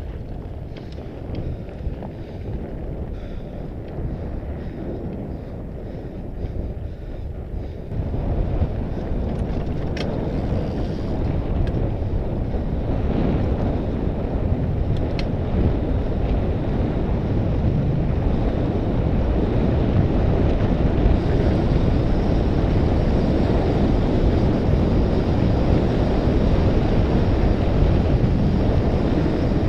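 Wind buffeting the microphone of an onboard camera on a moving fat bike, mixed with the rumble of fat tyres rolling on gravel. It gets louder about eight seconds in and rises further, with a couple of faint clicks.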